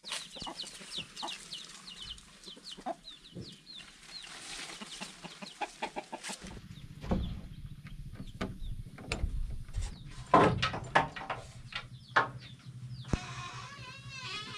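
Chickens clucking and calling, with many quick high peeps through the first half. Several sharp knocks come in the second half, and a wavering call sounds near the end.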